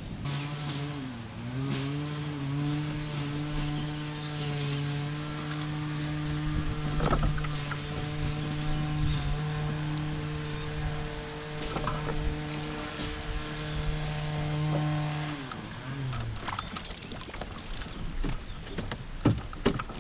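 Boat's electric trolling motor humming steadily, its pitch dipping and settling in the first couple of seconds, then winding down about three-quarters of the way through. A few sharp clicks and knocks follow near the end.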